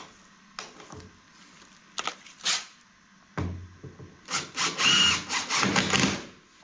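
Makita cordless impact driver driving a screw, hammering loudly for about two seconds from a little past the middle, after a few knocks of handling.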